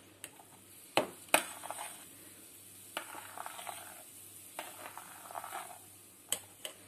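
A metal spoon stirring okroshka, chopped vegetables in a fizzy soured-milk drink, in a stainless-steel pot: wet sloshing with sharp clinks of the spoon against the pot, the loudest two about a second in and a few more near the end.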